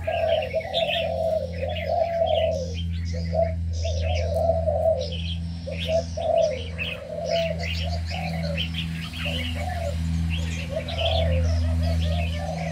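Mixed aviary birds calling: doves coo over and over in low, rolling phrases while many small birds chirp and twitter above them, with a steady low hum underneath.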